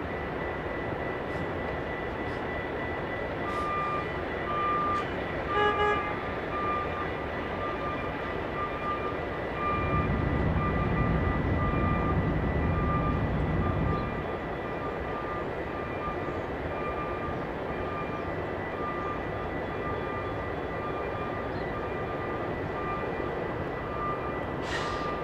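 Rail yard ambience: a steady low drone of diesel locomotives with a thin high whine over it, and a long run of short repeating beeps. A brief pitched toot sounds about six seconds in, and a heavier low rumble swells from about ten to fourteen seconds.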